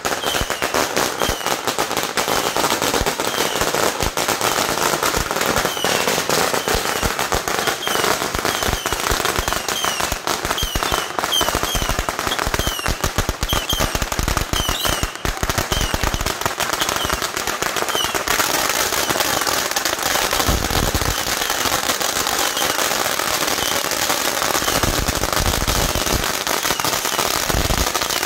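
Firecrackers going off in a dense, rapid crackle of many pops a second, like long strings burning on the pavement. Short high squeals come through over roughly the first two-thirds.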